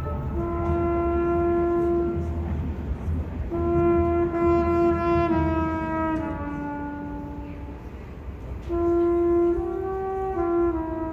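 High school marching band's brass section playing long held chords in three phrases with short gaps between; the middle phrase steps down in pitch twice as it fades.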